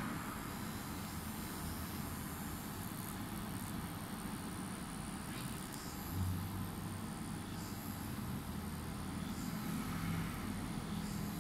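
Steady low background drone; about six seconds in a rotary tattoo machine starts and hums steadily as the needle works on skin.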